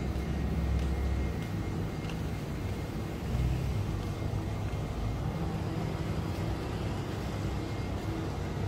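Steady low rumble of a moving vehicle or its machinery, with a faint steady hum over it.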